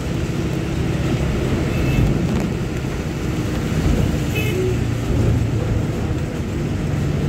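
Steady engine hum and road noise of a vehicle driving on a wet city road, heard from inside the vehicle. Two brief faint high tones come through, about two seconds in and again about four and a half seconds in.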